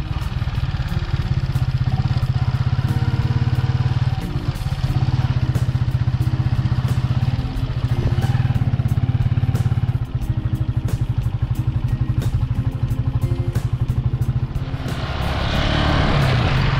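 An engine running at a steady speed, loud and close, with a rapid even pulse.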